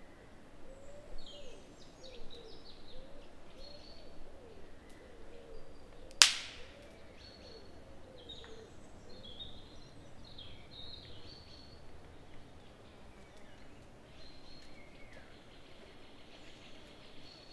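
Woodland birds chirping and singing, with one loud, sharp crack about six seconds in.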